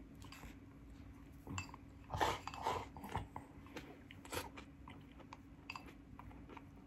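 Close-up chewing of cauliflower rice: soft wet mouth sounds and small crunches, busiest about two to three seconds in. Now and then a light click of chopsticks against a porcelain bowl, over a faint steady hum.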